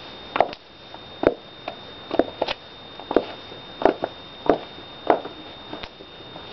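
Footsteps of black high-heeled shoes, each heel strike a sharp knock, at about one and a half steps a second as the walker moves away. The last steps are softer.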